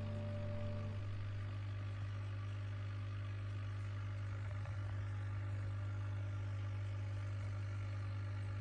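Steady low-pitched hum, with background music stopping about a second in.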